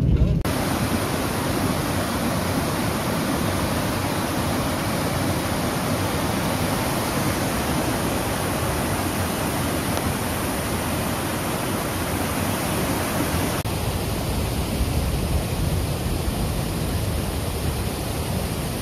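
Steady rushing hiss of water in a flooded street during a downpour, turning a little duller about two-thirds of the way through.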